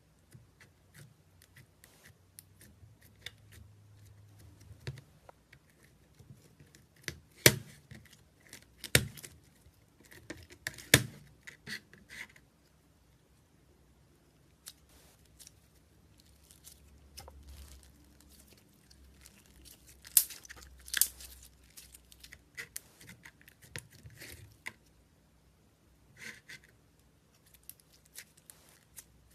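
Slime being played with, making irregular sticky clicks and crackles, with a few louder snaps about a quarter of the way in and again a little past the middle.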